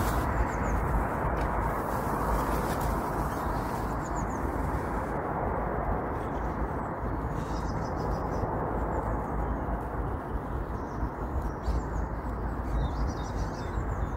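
Outdoor riverside ambience: a steady low rushing noise throughout, with small birds chirping faintly a few times.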